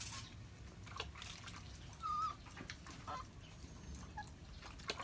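Soft water and handling sounds as a puppy is washed in a bucket of soapy water, with a few faint clicks and a brief high squeak about two seconds in.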